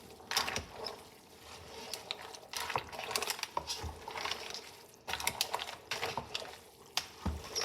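Spaghetti being stirred through a mussel sauce in a pot: a utensil scraping and clinking against the pot with wet sloshing, in several bursts.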